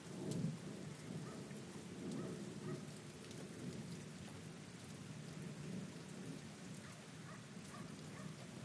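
Steady rain in a thunderstorm, with scattered drops ticking, over a low rumble of distant thunder that swells just after the start and again about two seconds in.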